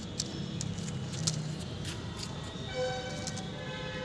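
Dog claws clicking on stone floor tiles, in irregular ticks. In the second half a steady, high pitched tone with overtones comes in and holds for over a second.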